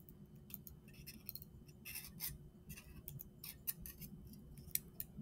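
Small scissors snipping excess tape off a microscope slide: a string of faint, irregular snips and clicks.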